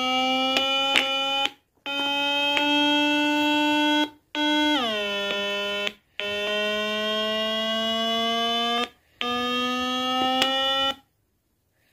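Small loudspeaker driven by a little circuit board, sounding a really loud, buzzy electronic tone in held notes of about two seconds with brief breaks between. Each note creeps slightly up in pitch, one slides down about five seconds in, and the tone stops near the end.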